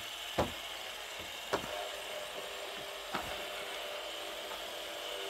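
Metal fidget spinners flicked into spin one after another, three sharp flicks about a second or more apart. Each flick is followed by the steady hum of the spinning bearings, which layer on top of each other.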